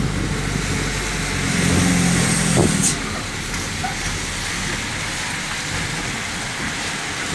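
Engine and road noise heard from inside a moving vehicle's cab on a wet road. A steady engine drone swells for about a second and a half midway and cuts off with a click near the three-second mark, leaving an even hiss of tyres on the wet surface.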